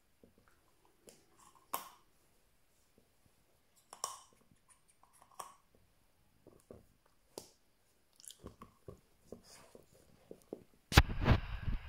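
Chesapeake Bay Retriever puppy chewing a rubber chew toy: scattered short clicks of teeth on rubber, coming more often near the end. About eleven seconds in there is a sudden loud bump, followed by steady noise.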